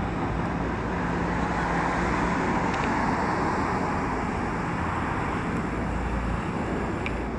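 Steady hum of road traffic, swelling a little a couple of seconds in and easing again as vehicles pass, over a low steady drone.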